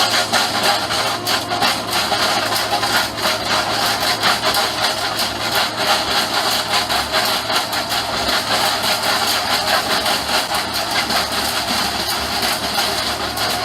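Heavy machinery at work: a steady low engine hum under dense, continuous clattering and crackling.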